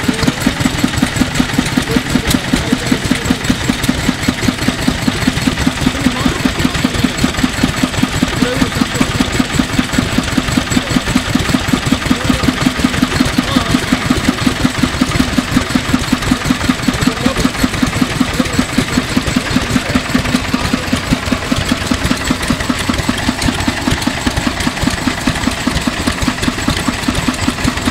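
1950s Kubota Universe KND5 596 cc tiller engine running at a steady speed with an even firing beat, driving the rotary tiller's belt and pulley.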